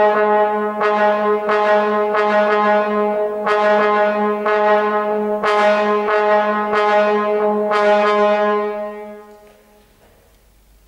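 Solo trombone holding one low note and hitting it again and again with sharp accents, each attack flaring bright, about a dozen times; the note then dies away about nine seconds in, leaving the hall quiet.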